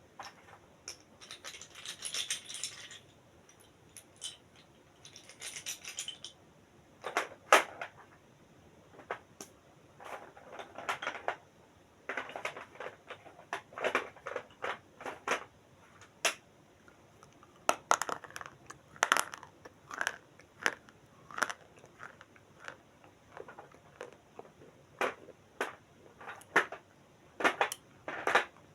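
Parcel packaging being handled and opened: crinkling and rustling of plastic and paper wrapping, with many sharp crackles, taps and clicks, and two longer rustles in the first few seconds.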